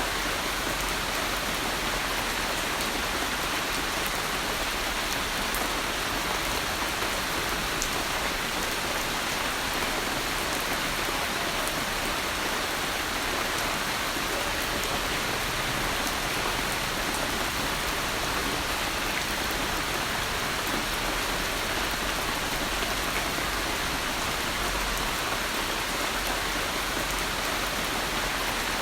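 Steady rain falling: an even, unbroken hiss of drops, with a few single drop ticks standing out.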